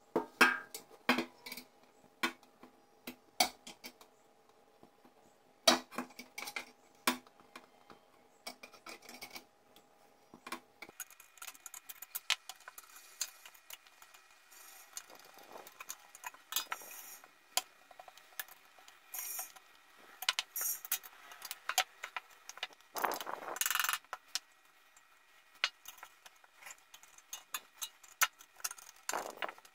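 A metal hand tool clicking, tapping and scraping against an old copper box, with a faint metallic ring after the sharper knocks. Later comes a busier stretch of scraping and small ticks as small metal pins are worked out of the box, with one longer, louder scrape past the middle.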